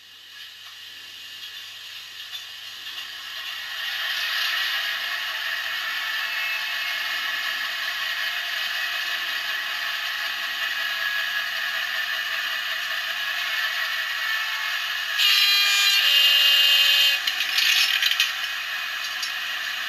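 Model-railway sound decoder playing a Class 28's Crossley two-stroke diesel engine: it starts up, building over the first few seconds, then settles into a steady clattering idle. About fifteen seconds in there is a louder clattering passage lasting a few seconds, then the idle carries on.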